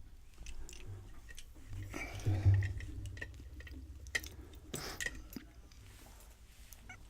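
Hand-handling of metal lock picks and a pin-tumbler lock: scattered small metallic clicks and clinks, with a low handling thump about two and a half seconds in.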